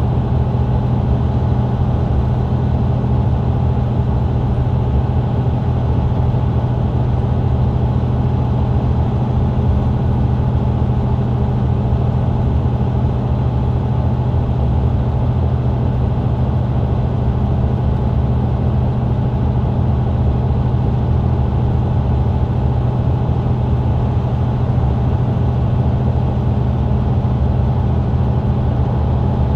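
Engine of a Mercedes-Benz Citaro C2 LE bus running at a steady, unchanging pitch, heard from inside the passenger cabin at the rear near the engine.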